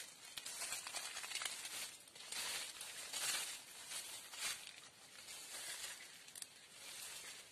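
Irregular rustling and crinkling of leaves and dry leaf litter in short, soft bursts.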